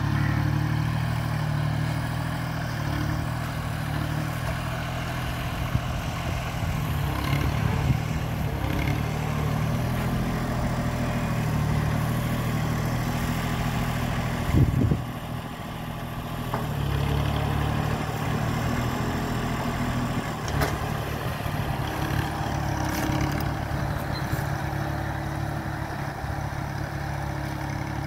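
Compact tractor's diesel engine running steadily at working speed while pulling a ridger through soil. About halfway through there is one sharp knock, followed by a brief dip before the engine sound returns.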